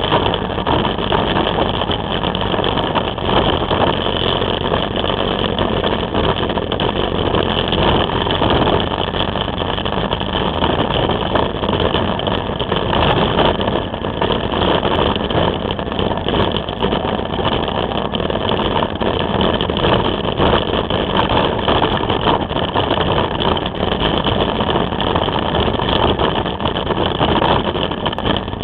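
Can-Am Spyder three-wheeled motorcycle on the move, heard from a camera mounted on it: steady engine and road noise at an even loudness throughout.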